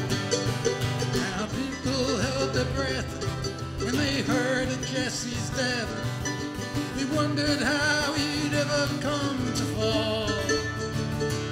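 Acoustic guitar strumming with a mandolin picking the melody, an instrumental break in an old-time folk ballad.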